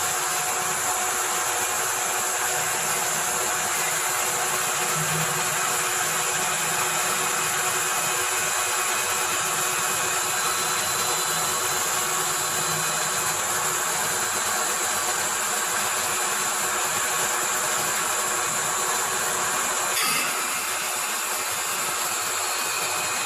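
Mini CNC wood-turning lathe running, its spindle turning while the tool cuts the outside profile of a small wooden workpiece: a steady hiss of cutting with a constant high whine. About twenty seconds in there is a brief click and the sound changes slightly as the machine moves to parting off the piece.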